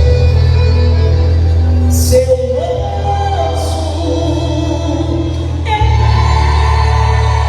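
Music with singing over a steady bass, with two bright crashes about two and three and a half seconds in.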